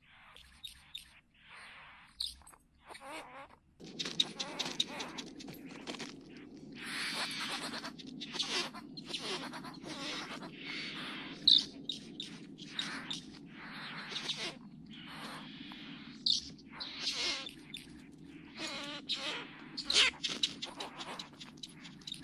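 Great bowerbirds giving repeated harsh, rasping calls at their bower during a male's display. A low steady background rumble sets in about four seconds in.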